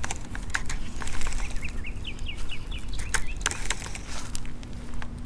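Handling clicks from a baitcasting reel as the jig is worked and the line reeled in. A bird chirps a quick series of short notes about two seconds in.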